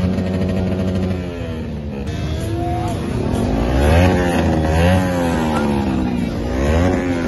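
Motorcycle engines revved hard, their pitch rising and falling over and over, with several bikes overlapping. Crowd noise runs underneath.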